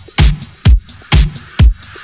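Electronic dance music with a steady kick drum, about two beats a second, and hi-hat hiss over it.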